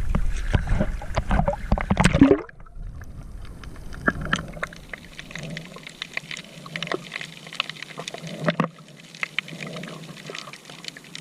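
Sea water splashing and trickling, with loud rumbling handling noise for the first two seconds, then quieter scattered clicks and small splashes.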